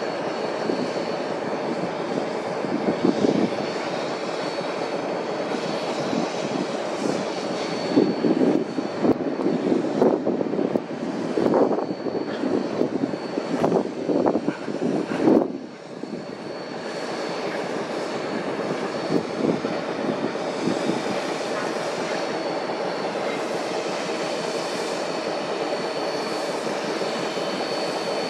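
D&SNG 493, a K-37 2-8-2 narrow-gauge steam locomotive, working steam as it approaches with a freight train: a steady rough exhaust, with louder irregular exhaust beats building from about eight seconds in. About halfway through it drops off suddenly to a quieter, steady rumble.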